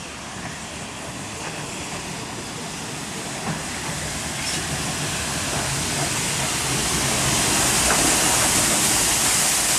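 Steam tank locomotive drawing slowly into the station towards the listener, its steam hiss and running noise growing steadily louder as it comes closer, with a few faint knocks.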